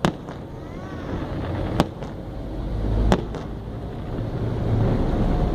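Fireworks exploding in the air: three sharp bangs, at the start, just under two seconds in and about three seconds in, over a steady low rumble.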